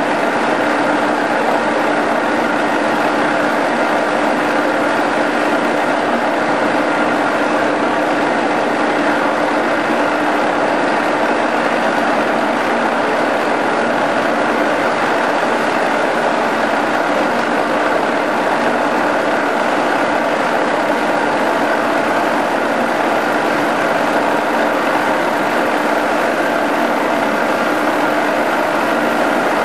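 Huron SXB 733 CNC universal milling machine running steadily with nothing being cut: an even mechanical whir with a steady hum and a higher whine held over it.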